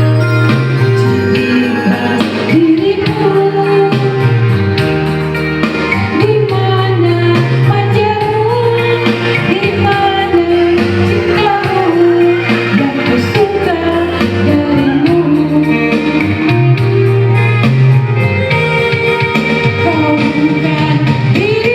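A voice singing a melody over backing music with a steady bass line.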